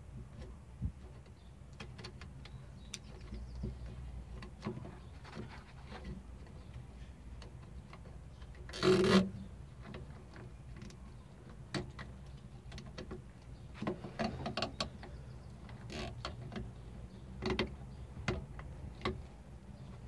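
Light plastic clicks and knocks of a car's dome-light housing and its wiring being handled and pressed into place, with one louder noise lasting about half a second about nine seconds in, over a low steady hum.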